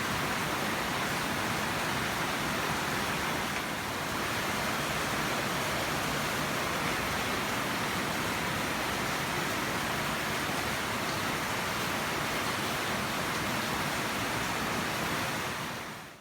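A steady hiss that fades out near the end.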